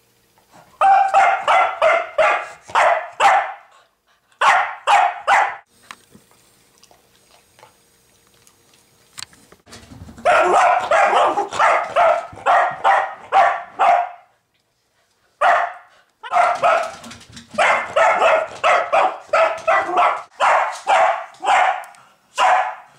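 Cavalier King Charles spaniel barking in rapid volleys of sharp barks, with a pause of a few seconds about six seconds in and a brief one near the middle.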